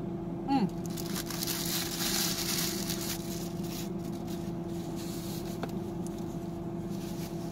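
A parked car's engine and air conditioner run with a steady hum. A paper food wrapper rustles and crinkles in the hands from about one to three and a half seconds in.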